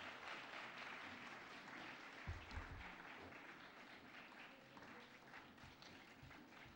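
Faint audience applause that slowly dies away, with a couple of dull low thumps a little over two seconds in.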